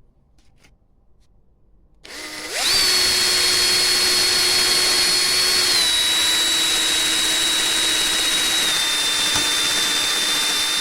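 Electric power tool with a wire brush, used to clean a fouled mower spark plug. It spins up about two seconds in and runs on with a steady high whine, its pitch dropping slightly twice as it is put under load.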